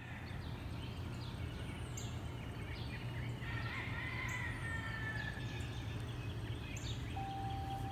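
Outdoor ambience of several birds singing and calling in short chirps and sweeping notes, over a steady low hum. A steady single note comes in near the end.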